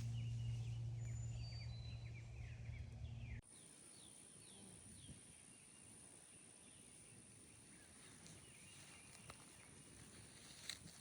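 Small birds chirping with quick falling notes over a steady low hum, which cuts off abruptly about three seconds in. After that, a steady high-pitched insect drone with occasional bird chirps and a few faint clicks.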